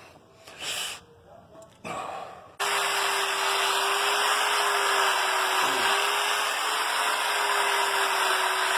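A small electric motor with a fan starts abruptly about two and a half seconds in. It runs steadily with a rush of air and an even hum, after a few soft sounds.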